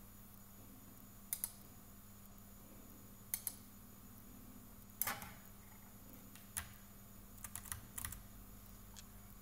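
A few faint, sharp clicks, several in quick pairs, spaced a second or two apart, with a tight cluster near the end, over a steady low hum.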